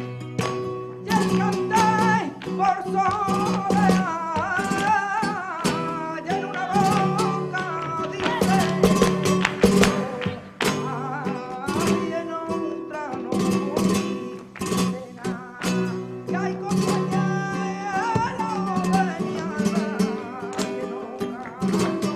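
Flamenco music: guitar with a singer's wavering, ornamented vocal line and sharp percussive strokes throughout.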